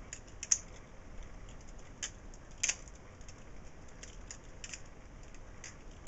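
Balisong (butterfly knife) being flipped open and closed in a reverse grip, its handles and blade clacking together in a few sharp metallic clicks. The loudest click comes about half a second in, with others near two and a half seconds and near five seconds.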